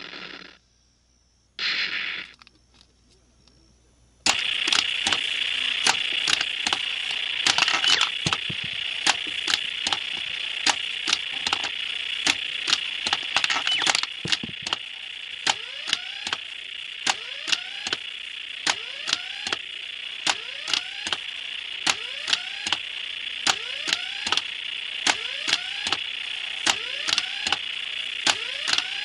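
Retro Nishijin Red Lion wing-type pachinko machine: a brief tone about two seconds in, then a short lull. About four seconds in, play starts and the machine runs on with a steady hiss and a sharp clack of balls about every half second.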